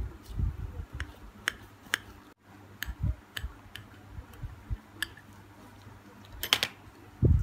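A knife sawing through a baked pizza roll on a plate: scattered light clicks and ticks from the blade and the crust, with soft handling thumps between them. Near the end there is a louder cluster of clicks, followed by a thump.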